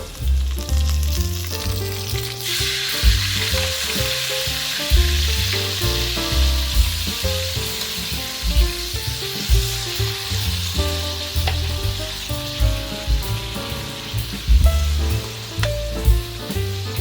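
Food frying in hot oil in a pan, a steady sizzle that starts suddenly about two and a half seconds in. Background music with a bass line plays underneath.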